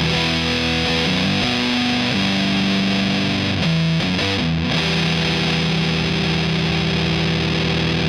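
Electric guitar played through a Big Muff-style fuzz pedal, the Pickdropper Mini Muffin: heavily distorted, sustaining chords that change several times, then one chord held and ringing through the second half.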